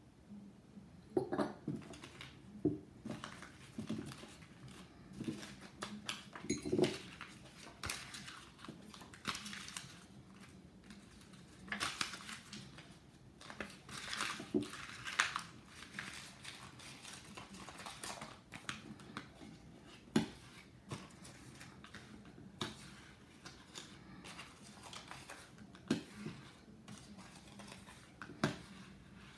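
Paper squares rustling and crinkling as they are scrunched by hand and pushed down onto a metal ticket spike, with scattered light clicks and taps from the metal spike and base.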